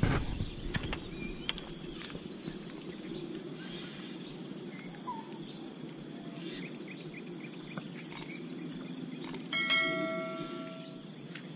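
Steady outdoor ambience with insects, then near the end a couple of clicks followed by a bell-like chime: a subscribe-button sound effect.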